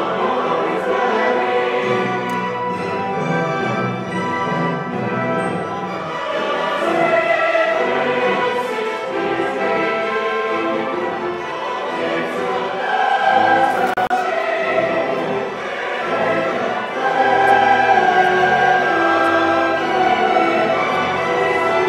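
Large choir singing with an orchestra in a sustained classical choral piece, growing louder about two-thirds of the way through.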